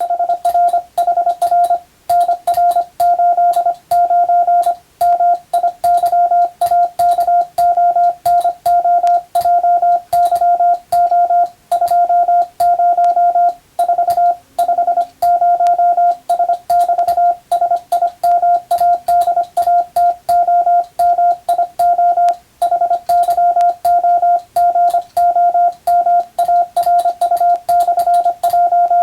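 Morse code: a single steady beep tone of about 700 Hz keyed on and off in fast dots and dashes, with brief breaks between words, as in radiotelegraph (CW) code practice.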